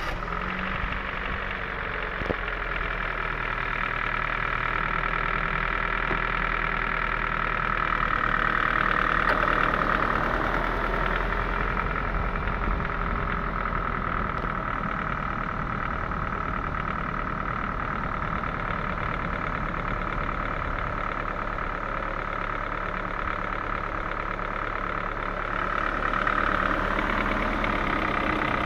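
Ford 1.6-litre engine idling steadily just after a restart, warm but stopped for ten minutes, with a knock that the owner reports from the engine.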